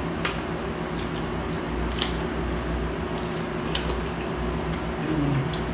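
Table sounds of a seafood meal eaten by hand: a few sharp clicks of shells and dishes, spaced a second or two apart, over the steady hum of a running fan and air conditioner.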